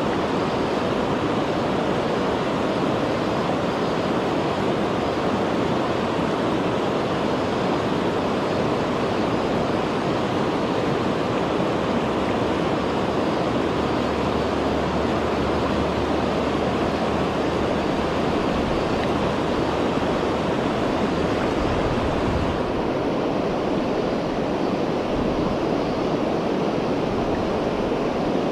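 Shallow river riffle flowing over cobbles: a steady rush of moving water with no change in level.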